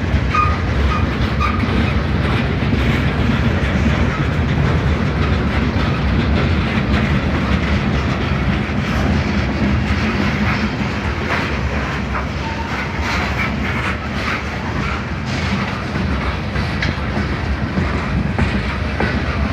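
Railroad cars rolling past, a steady rumble with the wheels clicking and clattering over the rail joints.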